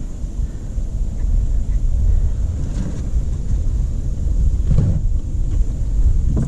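Wind buffeting the microphone outdoors, a loud low rumble that swells and dips.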